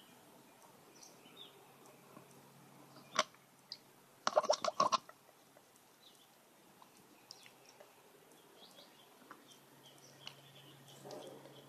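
Faint background with scattered short bird chirps. A single sharp click comes about three seconds in, then a quick rattle of clicks about a second later.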